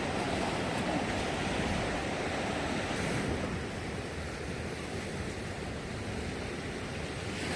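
Sea waves washing onto the beach, a steady rush of surf that eases a little after about three seconds.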